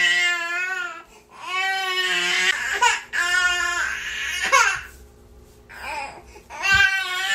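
Infant crying in repeated high-pitched wails, each about a second long, with short pauses between them.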